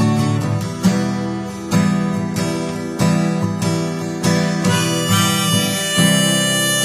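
Acoustic guitar strumming a steady rhythm, with a harmonica coming in about five seconds in and holding long notes over it: an instrumental break in an acoustic blues-rock song.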